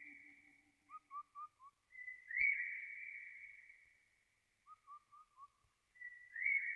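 A high whistled call that repeats about every four seconds: a long steady note that fades slowly, then four short falling chirps.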